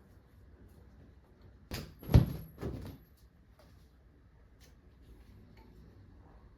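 A brief clatter: three knocks within about a second, the middle one a loud thump.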